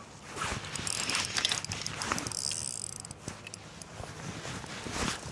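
Fishing reel ratcheting in a run of quick clicks as a hooked fish is played and reeled in.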